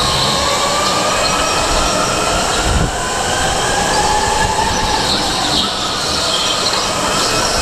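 Onboard sound of a rental go-kart racing: its drive makes a high whine that glides up and down in pitch as the kart speeds up and slows through the corners, over a steady rush of tyre and running noise.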